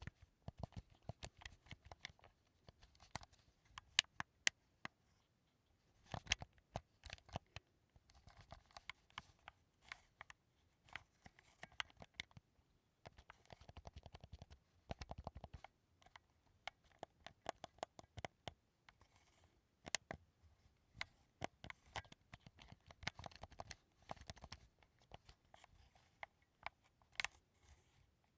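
Sony DualSense (PS5) controller being handled, its buttons and sticks clicking in irregular runs of sharp plastic clicks, with rubbing and scraping of the plastic shell between them.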